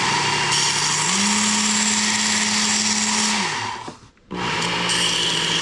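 Belt grinder with a coarse belt, about 100 grit, running as a steel Leatherman plier part is ground against it: a steady motor hum under a harsh grinding hiss. The motor pitch rises about a second in and falls back, and the sound cuts out briefly about four seconds in before starting again.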